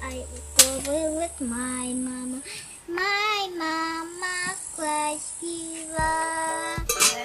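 A song with a high, child-like singing voice holding and wavering on notes. A sharp knock comes about half a second in, and another just before the end.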